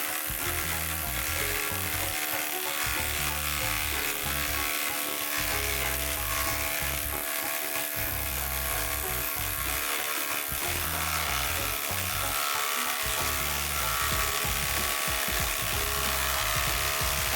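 Cordless impact driver hammering steadily under load as it drives a large lag bolt into OSB, under background music.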